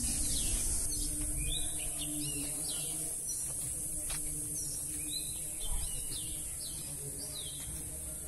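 Small birds chirping outdoors: a string of short, quick, high chirps repeating every half second to a second, over a steady high-pitched hiss.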